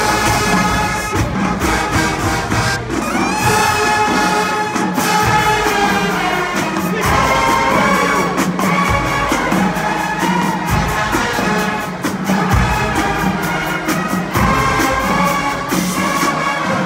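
Marching band playing: loud brass chords over a steady drumline beat.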